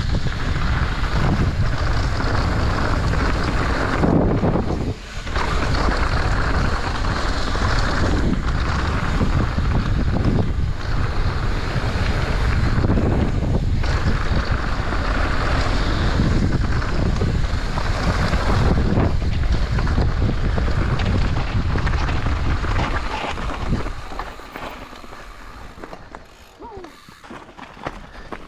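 Wind rushing over a point-of-view camera's microphone on a fast mountain-bike descent, mixed with the noise of the bike on the trail. The rush dies down near the end.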